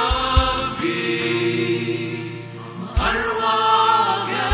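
Live Christian worship music: a man singing a slow Arabic worship song into a microphone over sustained instrumental chords, with a few deep drum hits.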